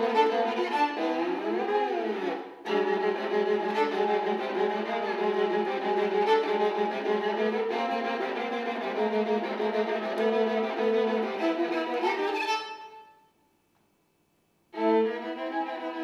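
Viola played with a bow in long, sustained notes, with a note sliding up and back down about two seconds in. The playing dies away near the end into a second or so of silence, then comes back in abruptly.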